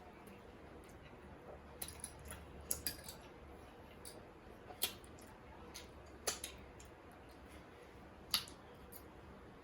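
Close-miked eating sounds: chewing with scattered sharp mouth smacks and clicks, about half a dozen over several seconds, the sharpest near the end.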